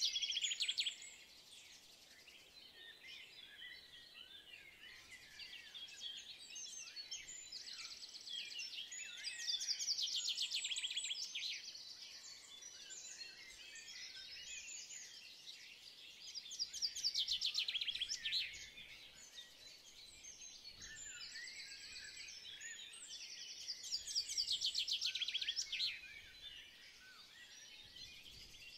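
Birdsong: many small birds chirping, with a louder rapid trill that comes back about every seven seconds.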